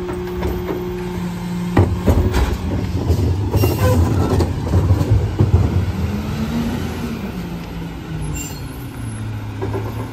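Rear-loader garbage truck's diesel engine and body: a steady hum, a sharp clunk about two seconds in, then rattling as the truck pulls ahead, the engine pitch rising and falling before it settles to a lower steady hum near the end.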